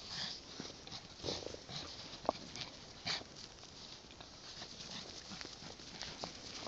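Dogs playing in snow: irregular crunching and scuffling of paws, with a short, sharp, single-pitched sound about two seconds in.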